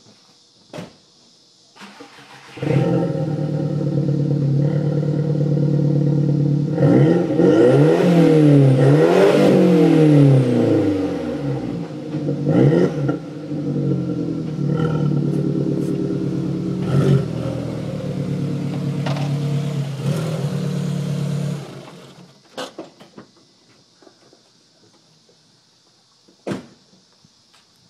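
Audi TT's engine starting about three seconds in and idling, then revved several times in rising and falling sweeps, with a few shorter blips of the throttle, until it stops about three-quarters of the way through. A few light knocks follow near the end.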